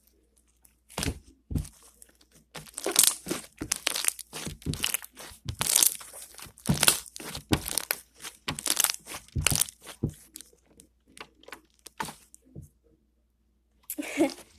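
Slime being squeezed and stretched by hand, with irregular crackling pops of trapped air bubbles. The pops stop a little after twelve seconds and start again near the end.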